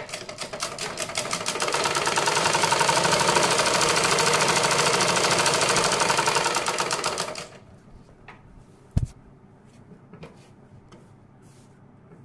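Usha sewing machine stitching at a fast, steady rate. It builds up speed over the first couple of seconds and stops about seven and a half seconds in. A few light clicks and a single thump follow about nine seconds in.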